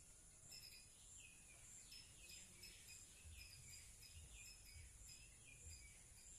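Faint birds chirping in short, downward-sliding calls. Repeated high notes sound over a steady high-pitched background hum.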